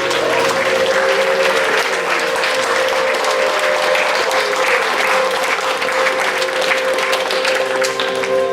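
A group of voices humming together, holding several steady notes at once, with a dense crackling noise over the top.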